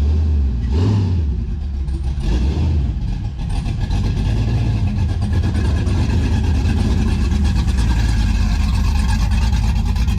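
A car engine revved in two short blips, then held at a steady run.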